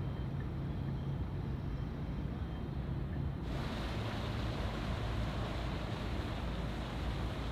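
Outdoor ambience: a steady low rumble like distant engines across open water. About three and a half seconds in, an edit brings in a brighter, even hiss.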